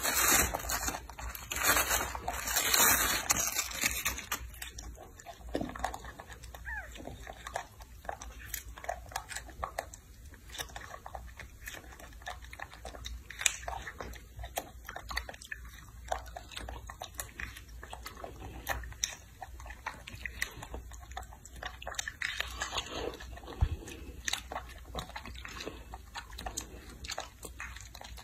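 A baby macaque eating strawberries, with irregular short bites and chewing. The sound is louder in the first few seconds, while it has its face down among the wrapped berries.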